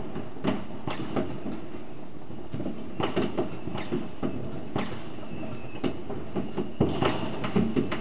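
Fireworks and firecrackers going off: a stream of irregular bangs and crackles, busier about three seconds in and near the end, with a faint falling whistle a little past halfway.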